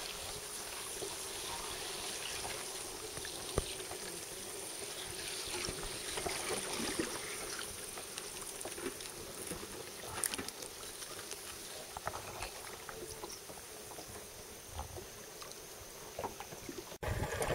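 Water trickling and lapping with scattered light ticks and brushes as a mokoro, a dugout canoe, is poled through reeds and lilies.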